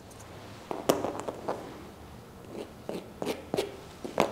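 Grooming scissors snipping dog hair: about eight sharp, irregular snips.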